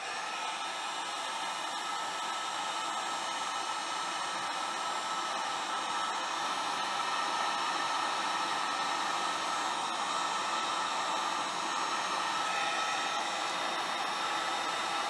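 Wagner heat gun running steadily, its fan blowing with a constant whine, as it shrinks heat-shrink tubing over a crimped wire terminal.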